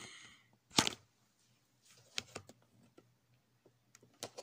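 Handling noise as a phone camera is picked up and repositioned: one loud knock about a second in, then a few short sharp clicks and taps.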